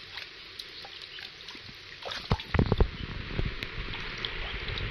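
Water sloshing and dripping in a plastic basin as a baby monkey's neck and head are washed by hand, with a short run of louder splashes about halfway through.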